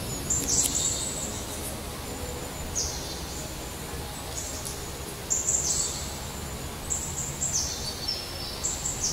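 Small songbirds chirping short, high-pitched phrases every second or two over a steady low background rumble of outdoor noise.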